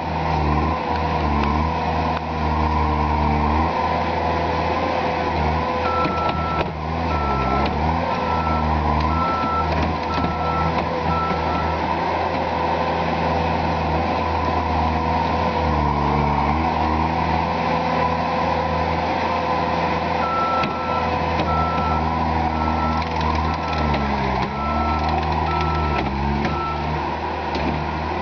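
Terex PT-60 compact track loader's diesel engine running hard while pushing heavy mud, its pitch dipping several times as it takes the load. A reverse alarm beeps a little faster than once a second in two runs of about six seconds each, as the loader backs up.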